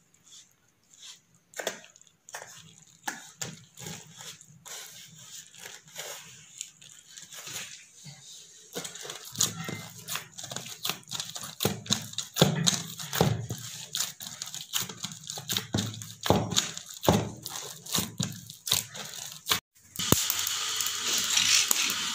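Wheat flour dough being kneaded by hand in a metal bowl: irregular squelching, slapping and pressing sounds, louder and denser from about nine seconds in. About two seconds before the end it switches abruptly to the steady crackling hiss of a straw fire burning in a clay stove under a pot.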